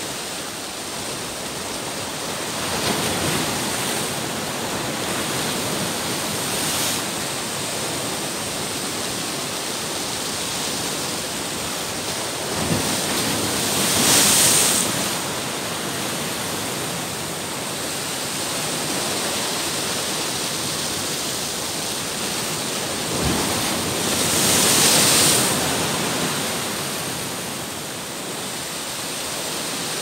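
Sea waves breaking and surging around a rocky headland: a steady wash of surf with louder surges about every ten seconds, the strongest about halfway through.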